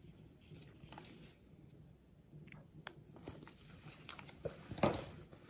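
Miniature schnauzer chewing and smacking at dog toothpaste while its teeth are brushed: scattered small clicks and wet mouth sounds, the loudest a little before the end.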